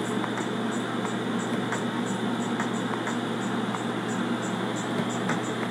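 Chicken wings sizzling in sauce in a frying pan: a steady sizzle with a few faint pops, over a constant low hum.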